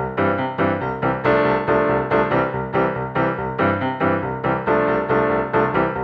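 Background music: a piano-like keyboard melody with notes struck in a steady, even rhythm.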